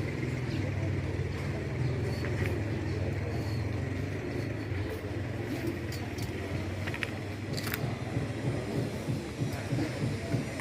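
An engine running steadily with a low hum, with a couple of sharp clicks about seven seconds in.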